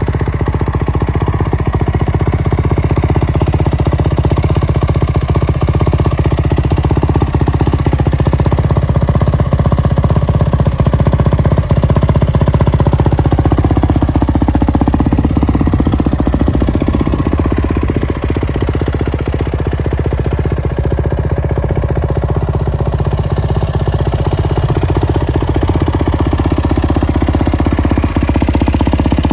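2022 Kawasaki KX450's single-cylinder four-stroke engine, running on a Vortex ECU, idling steadily. Its engine speed shifts a little about halfway through, then settles back to idle.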